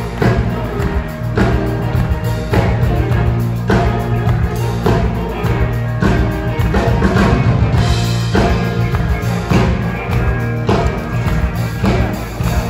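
Loud music with a driving drum beat over sustained bass notes, with heavy accents about every second and a quarter.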